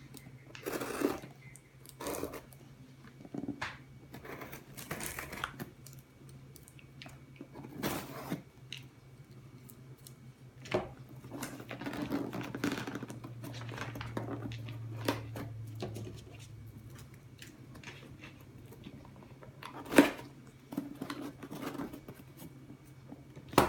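A subscription box and its packaging being opened by hand: irregular tearing, rustling and crinkling, with a sharp knock about twenty seconds in.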